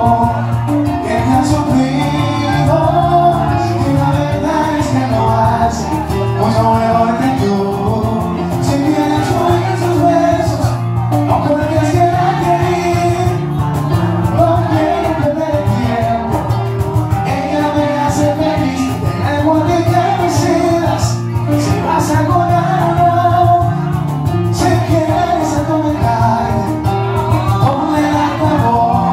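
Latin song performed live: a man singing into a microphone over an amplified accompaniment that runs steadily throughout.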